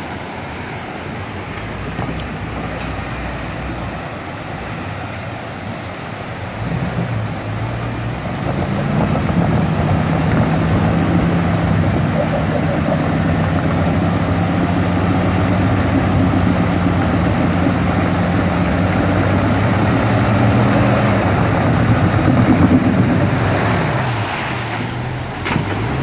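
Jeep Wrangler's 4.0-litre straight-six engine running as the Jeep crawls through a rushing creek, louder from about seven seconds in, holding fairly steady revs with small rises and drops in pitch; creek water rushes throughout. Near the end the engine fades and water splashes close by.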